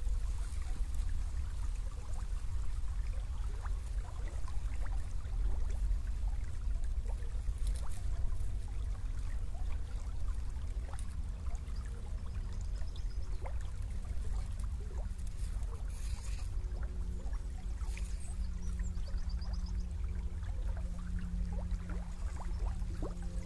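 Small stream flowing, with many small plinks of moving water. A faint low hum comes in past the middle, and a few faint high chirps are heard.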